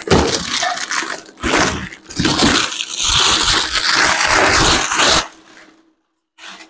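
Polythene wrap crinkling and tearing as it is pulled off, in several rustling bursts that stop about five seconds in.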